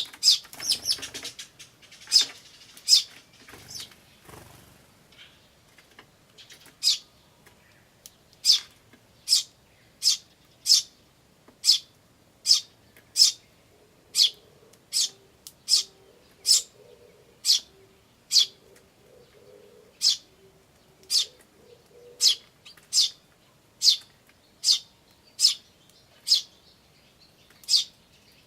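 Eurasian tree sparrows calling: a jumbled burst of chirps with some rustling in the first few seconds, then single sharp chirps repeated evenly, a little more than one a second.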